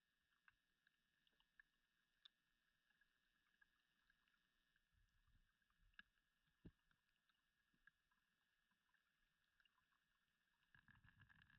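Near silence: faint steady background hiss with a few scattered tiny clicks.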